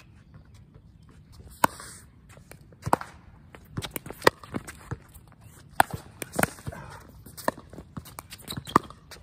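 Pickleball rally: composite paddles striking a hard plastic outdoor pickleball, sharp hollow pops at uneven intervals of about a second, about seven in all, with shoes scuffing on the court between hits.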